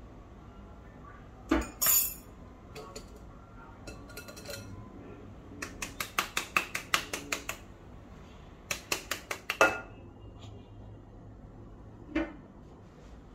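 A metal spoon clinking and knocking against a stainless steel bowl and cup while measuring and mixing. The clinks come in two quick runs in the middle, with a couple of louder knocks near the start and one near the end.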